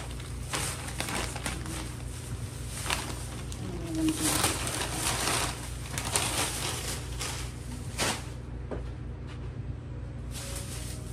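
Groceries being unpacked: bags and packaging rustling and items knocking, in irregular bursts over a steady low hum.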